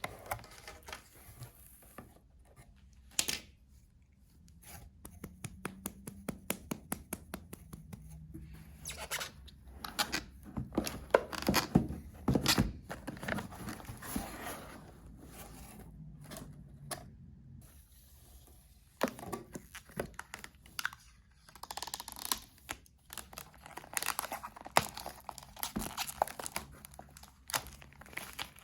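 Packaging being opened by hand: plastic or paper wrapping tearing and crinkling, with many small taps and clicks in between.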